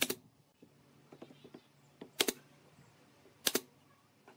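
Nail gun firing three times into pine boards, sharp single shots at the start, about two seconds in and about three and a half seconds in.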